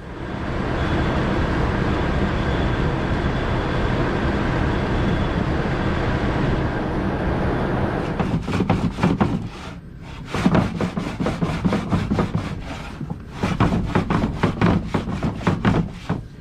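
A heavy machine running steadily, then a rapid, even run of knocking or clattering strokes from about eight seconds in, broken by two short pauses.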